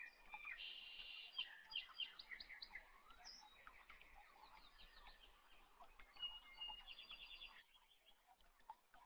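Faint birdsong: several birds chirping and trilling, with short repeated notes and a quick trill a little before the end.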